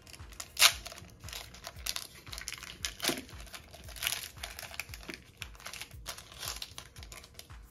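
Foil booster-pack wrapper crinkling and being torn open, in a string of irregular sharp rustles, the loudest about half a second in.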